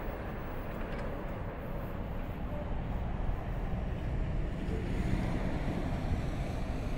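Low, steady rumble of a distant freight train of container wagons running away along the track, mixed with wind noise on the microphone.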